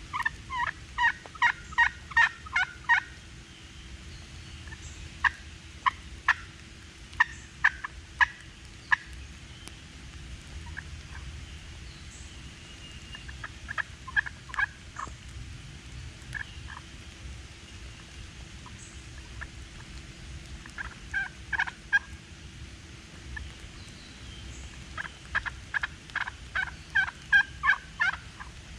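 Wild turkey yelping: runs of short, evenly spaced notes, about eight in a row, repeated several times with sparser notes in between.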